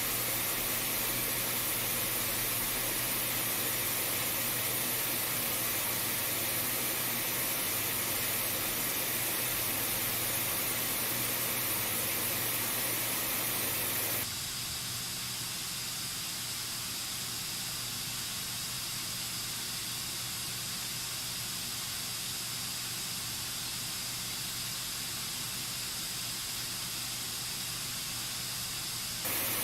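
White-noise test signal played through a Bluetooth speaker, a steady full-range hiss. About halfway through it cuts to the other speaker under comparison (Anker SoundCore 2 and Bose SoundLink Mini II), and the hiss becomes slightly quieter and thinner in the middle range. Just before the end it switches back.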